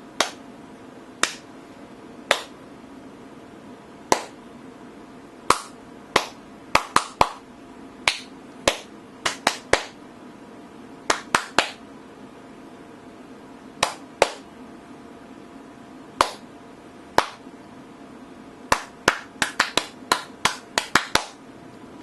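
Sharp hand claps, some single and some in quick runs of three to five, about thirty in all, over a steady low hum.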